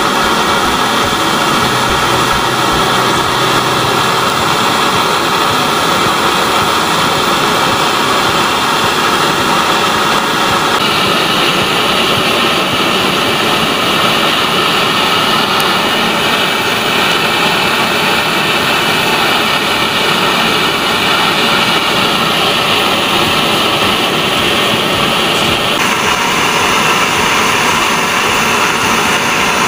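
Coil-jet alcohol stove burning at full output, its pressurised vapour jets giving a loud, steady rushing hiss. The tone changes abruptly twice, about eleven seconds and twenty-six seconds in.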